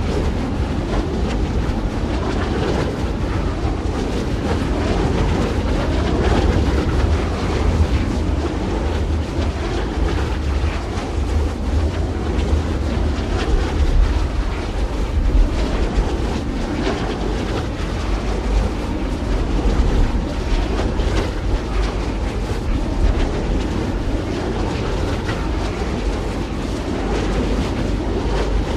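Continuous wind blowing, a steady rushing noise with a deep low rumble that swells and eases in gusts.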